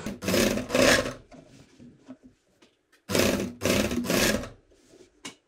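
Electric sewing machine stitching through knit fabric in short runs: two brief runs, a pause of about two seconds, then two more.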